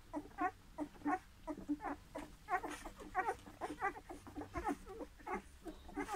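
Newborn Bernese mountain dog puppies squeaking while they nurse: a quick string of short, high squeaks, several a second, overlapping one another.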